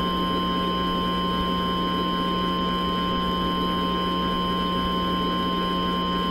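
Emergency Alert System attention tone: one steady, unwavering pitch held throughout, over a constant low hum and hiss, signalling an emergency alert broadcast.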